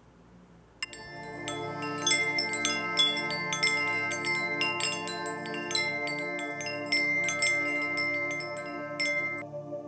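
Ambient outro music: chimes tinkle in quick, scattered strikes over a soft held pad. It starts about a second in, and the chimes stop shortly before the end while the pad goes on.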